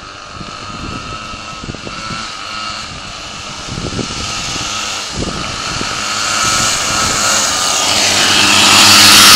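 Twin 49cc two-stroke pocket-bike engines on a motorized drift trike whining. The sound grows steadily louder as the trike closes in and is loudest near the end, with wind buffeting the microphone underneath.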